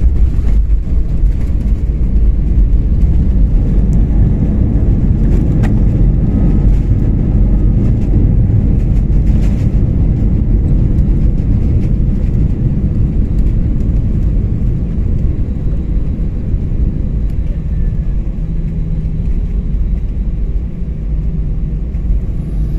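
Cabin noise of an Airbus A320 on its landing roll: a loud, steady low roar of the engines and the wheels on the runway. It comes in suddenly at the start and slowly eases as the airliner slows down.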